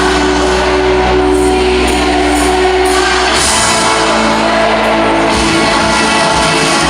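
Rock band playing live with a sung vocal line, loud and steady, the low notes changing about five seconds in.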